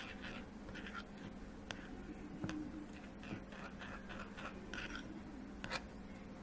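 A spoon stirring and scraping a thick paste of spiced ground fenugreek and black honey in a glass bowl: faint, irregular scraping strokes with a few light clicks.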